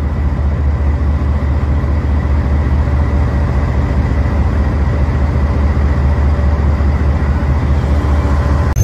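GE U20 diesel-electric locomotive running under way: a loud, steady, low engine drone heard close up from beside the cab, with a faint steady whine above it.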